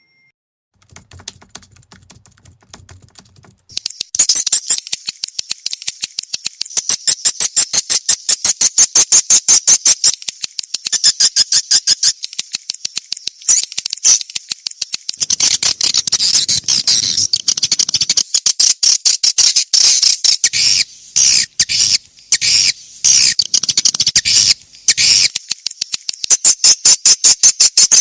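Swiftlet lure call: a dense, very rapid run of high chirps and clicks, the kind played to draw swiftlets into a nesting house. It is faint at first, turns loud about four seconds in, and breaks off briefly a few times near the end.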